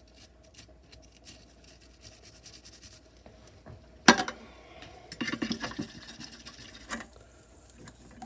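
A brush scrubbing back and forth over a steel knife blade, short quick scratchy strokes, with one sharp metallic click about four seconds in and a flurry of clattering strokes soon after.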